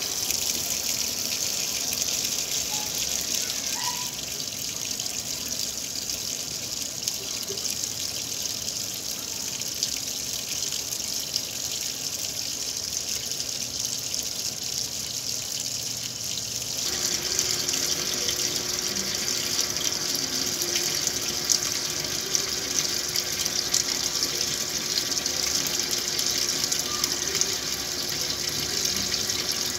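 Water pouring into the tub of a top-loading washing machine as it fills, a steady rushing hiss. About halfway through the sound grows fuller and a steady low hum joins in.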